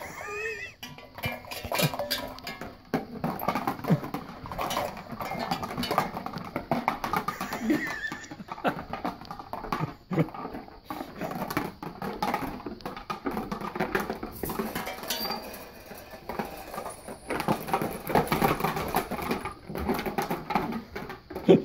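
Hanging plastic cups, bowls and frisbees clattering and knocking together as a Labrador puppy bites and tugs at them, a busy, irregular run of knocks and clicks.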